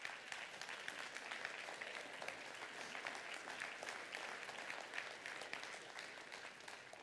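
A congregation applauding: many hands clapping together, dying away near the end.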